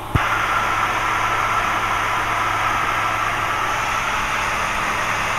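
A click, then steady radio hiss over the drone of a light aircraft's engine heard through the cockpit audio: the radio channel open with no voice on it.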